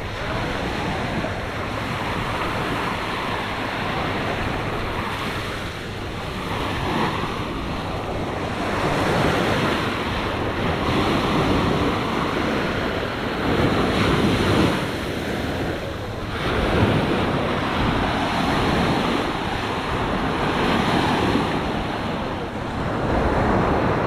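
Small ocean waves breaking and washing up the sand, swelling and easing every few seconds, with wind rumbling on the microphone.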